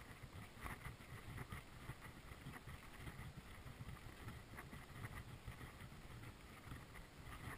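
Faint footsteps crunching on pebbly, shell-strewn sand at a walking pace, over a low rumble of wind on the microphone.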